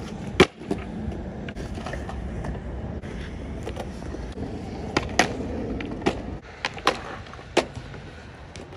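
Skateboard wheels rolling on smooth concrete, a steady low rumble that eases off in the last couple of seconds, with sharp clacks of the board on the concrete: a loud one about half a second in and several more between about five and eight seconds.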